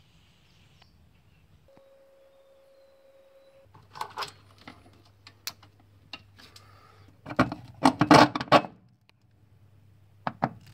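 Clicks and metallic knocks of car parts being handled in an engine bay, with a burst of loud clattering about seven to nine seconds in.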